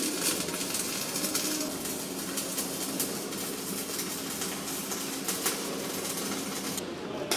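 MIG welding on a steel boat hull: a steady arc crackle full of small irregular pops. The high crackle drops out briefly near the end.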